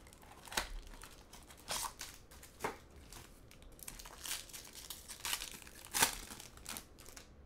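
Plastic wrap and foil wrapper of a trading card pack crinkling and tearing as it is pulled open by hand, in short irregular crackles.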